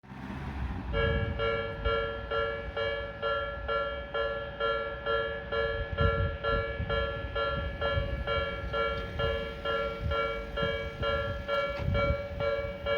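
Japanese railway level-crossing alarm ringing: an electronic two-tone clang repeating about twice a second, starting about a second in, with a low rumble underneath.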